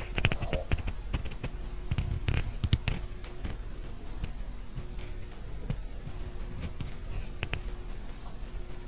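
Fingers handling a large shell-shaped macaron close to the microphone: scattered soft taps and crisp crackles of the meringue shell. They come in a cluster near the start, a denser one about two to three seconds in, and a few more later.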